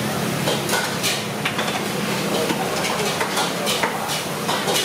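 Metal ladle, plates and pots clinking in quick, irregular knocks at a street-food stall, over a steady murmur of voices.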